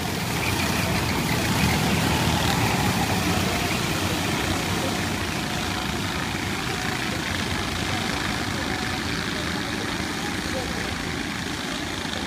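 Engines of a field of rental racing karts running on the circuit, many small engines blending into one steady drone that eases off slowly.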